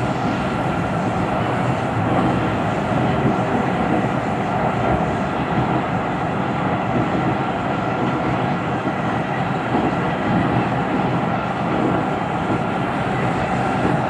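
Siemens Inspiro metro train running between stations, heard from inside the car: a steady rolling noise from the wheels on the rail, with faint steady high tones over it. The title calls it a weird rolling noise.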